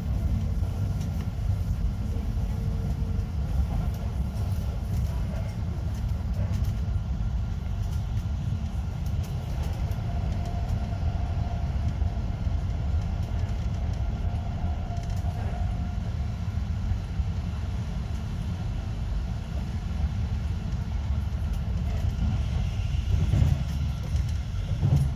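Regional train running at speed, heard from inside the passenger carriage: a steady low rumble of wheels on the track, with a faint whine for several seconds about midway.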